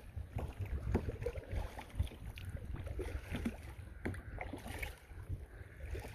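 Kayak paddle strokes in calm water: irregular small splashes and drips, over a low wind rumble on the microphone.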